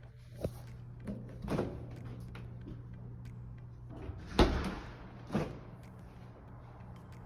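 A handful of knocks and bumps, like a door or cupboard being handled, with the loudest thud about four seconds in. A steady low hum runs underneath.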